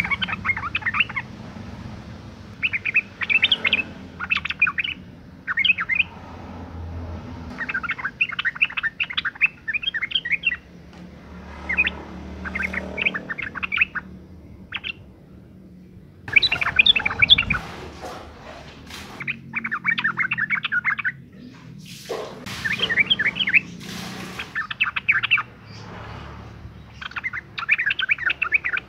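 Female yellow-vented bulbul (trucukan) calling: repeated short phrases of quick, bubbly chattering notes, one phrase every second or two with brief pauses between. This is the breeding-condition call used as a lure to make other trucukan sing.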